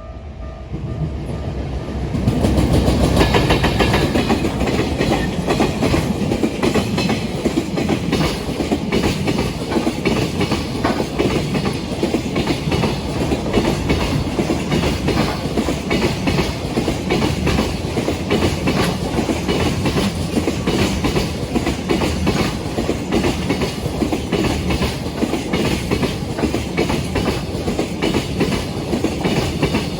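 Freight train passing close by, its wagon wheels clattering over the rail joints in a rapid clickety-clack. The loud passing noise comes in about two seconds in and then holds steady.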